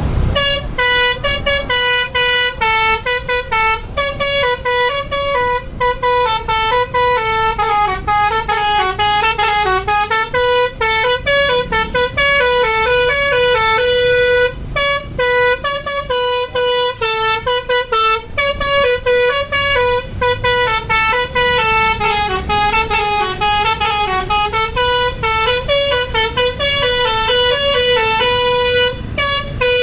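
Bus's Basuri telolet horn playing a fast melody of short, loud notes that step up and down in pitch, with a brief break about halfway through.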